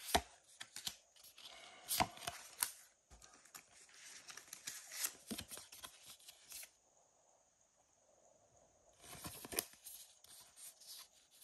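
Trading cards being handled: paper cards flicked and slid past one another, then a holo card slid into a plastic card sleeve, making short rustles and clicks. The handling pauses for a couple of seconds past the middle, then the rustling resumes.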